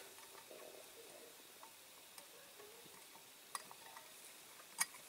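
Quiet handling of a diecast model lorry's base as a rivet is pressed into place by hand: faint rubbing with a few light clicks, the sharpest near the end.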